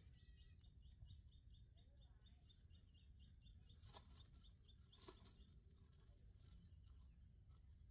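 Faint outdoor ambience: a bird calling in a fast run of short, high chirps, about four or five a second, that stops about five seconds in, over a steady low rumble. There are two faint clicks near the middle.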